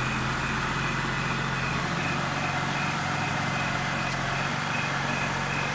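BMW E90 3 Series engine idling steadily, an even low hum with no change in speed.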